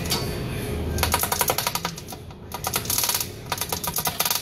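Hand ratchet wrench clicking in quick runs of clicks, four bursts with short pauses between, as it turns a fastener on a hydraulic breaker's cylinder.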